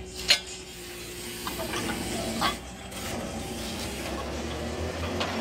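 A sharp metal clank from the pipe clamp on the well casing, then a low mechanical hum from the pump service truck's hoist that grows steadily louder as it lifts the pipe string.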